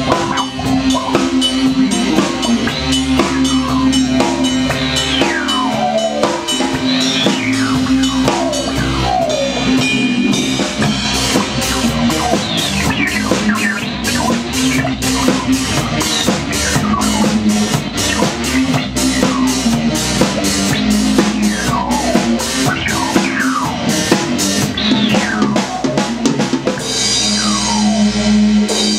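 Rock band playing: a drum kit keeps a steady beat under a held low bass note. Repeated falling pitch sweeps run over the top.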